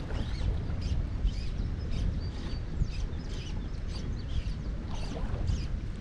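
Birds chirping in short, repeated calls, over a steady low rumble.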